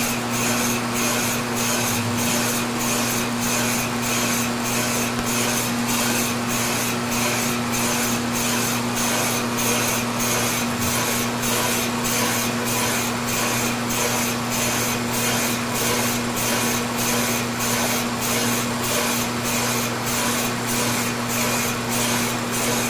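Boring bar cutting inside a rotating fiberglass stern tube: a steady rasping hiss that pulses about twice a second over a steady machine hum. The cut is running smoothly, not singing or chattering.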